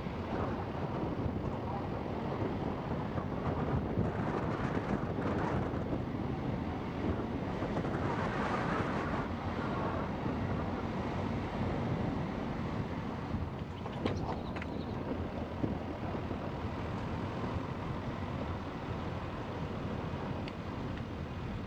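Car driving along a road, with steady wind noise on the microphone over the car's road and engine noise, heard from a camera held at the open car window.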